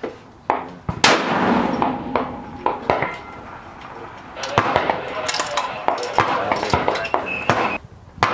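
A rifle shot about a second in, ringing out with a long echo, followed by a run of sharp metallic clinks and clanks.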